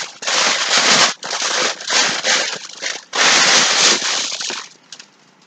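Packaging rustling and crinkling loudly in several rushes as hands rummage through a box of items, stopping a little before the end.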